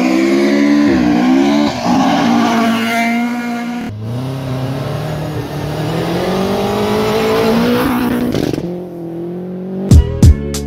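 Rally car engines revving and accelerating hard on a gravel stage, in two separate shots with rising engine pitch. Near the end a beat-driven music track starts.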